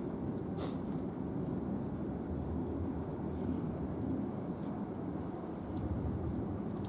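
Steady low outdoor rumble of background noise, with a brief high hiss about half a second in.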